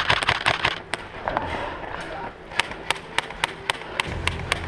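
Airsoft replica rifles firing: a dense cluster of sharp shots in the first second, then a steady run of clicking shots, about six or seven a second, from about halfway through.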